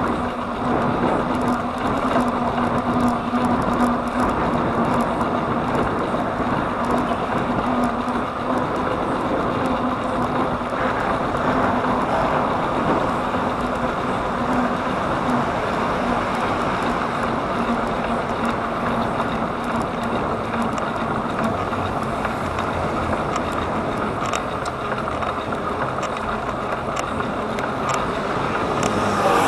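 Steady wind and road noise of riding a bicycle on the road, with a low steady hum that fades out about two-thirds of the way through and a few faint ticks near the end.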